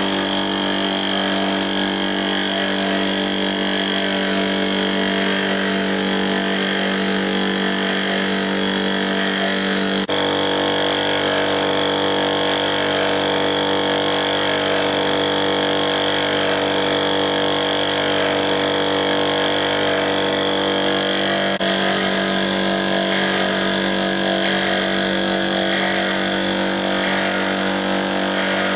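Air compressor running steadily with a hum and a high whine, feeding a suction-feed spray gun whose air hisses as it sprays finish onto wood.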